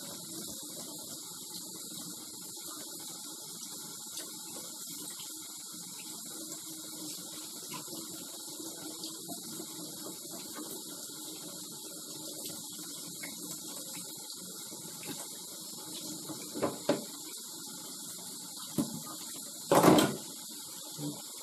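Kitchen tap running steadily into a stainless steel sink as shaggy ink cap mushrooms are rinsed and peeled under the stream. A few light knocks come near the end, then one much louder sharp knock about a second and a half before the end.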